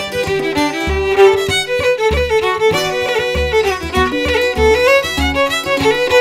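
An Irish reel played on fiddle, with strummed chords on a long-necked string instrument and bodhrán beats underneath. The fiddle carries a quick melody of running notes over the steady, regular low drum strokes.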